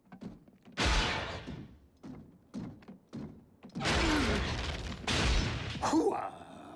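Cartoon battle sound effects: a series of blasts and explosions. A few sharp hits come first, then longer, louder rumbling blasts with a falling whine among them.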